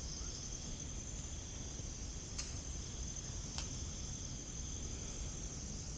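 Steady high-pitched chorus of crickets, with two faint clicks about two and a half and three and a half seconds in.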